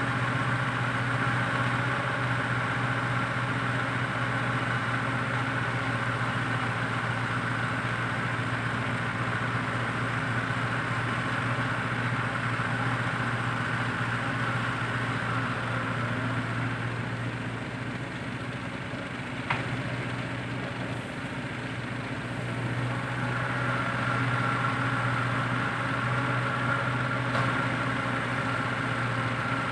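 Heavy diesel engine running steadily at a constant speed, easing off slightly about eighteen seconds in for a few seconds, with a single sharp click in the middle of that dip.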